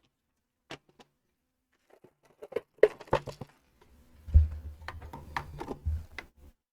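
Small plastic Lego Technic pieces clicking and tapping as they are handled and fitted. The clicks are scattered at first, then busier in the second half, with some low bumps.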